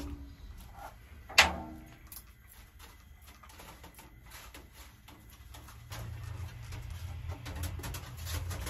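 The steel door latch of an upright smoker clanks open about a second and a half in, the loudest sound, with a brief metallic ring. It is followed by soft, repeated spritzes of a spray bottle misting basting sauce onto the hanging meat, and a low steady hum rises in the last few seconds.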